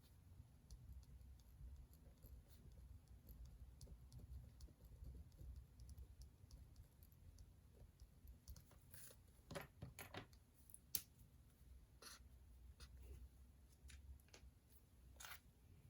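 Faint desk sounds of someone studying: scattered small clicks, taps and scratches over a low steady hum, with a few louder short rustles between about nine and twelve seconds in and another near the end.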